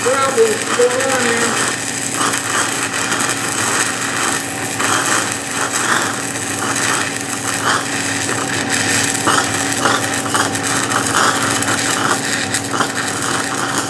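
Stick-welding arc of a 3/32-inch 6010 electrode crackling steadily as it runs an open-root pass on steel pipe at 69 amps DCEP. A steady hum sits underneath.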